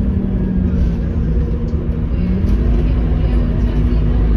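Scania K230UB city bus driving, heard from inside the passenger cabin: a steady low rumble with the engine's hum, which rises a little in pitch about halfway through.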